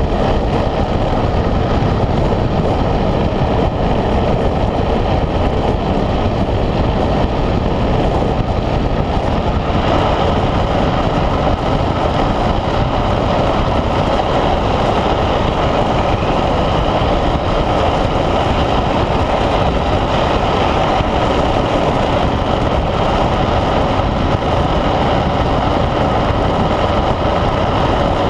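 Wind rushing over the microphone and tyres rolling on asphalt as a speed trike coasts fast downhill: a loud, steady rush that turns a little brighter about ten seconds in.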